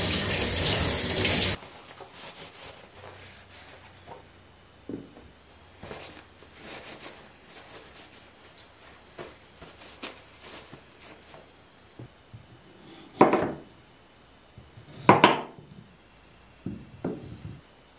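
Kitchen tap water running over cucumbers in a stainless-steel sink, shut off about a second and a half in. Then faint rustling of a paper towel on cucumbers, and near the end a few knife cuts through cucumber onto a wooden cutting board, the two loudest about two seconds apart.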